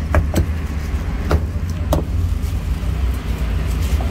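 Meat cleaver chopping roast pork on a chopping block: three quick chops at the start, then two more single chops about a second apart. A steady low rumble of vehicle engines runs underneath.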